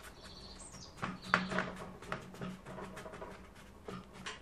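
Soft strokes and taps of a large hake brush working wet watercolour paint on paper, with a few faint high chirps near the start and a low steady hum through the middle.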